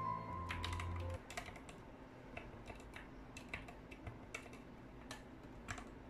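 Typing on a Gamakay MK61 mechanical keyboard with Gateron optical yellow linear switches: irregular key clacks. Background music stops about a second in.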